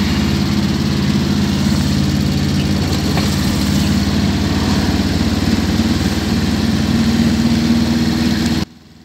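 A vehicle's engine running steadily with road noise, heard from on board while driving; the sound cuts off abruptly near the end.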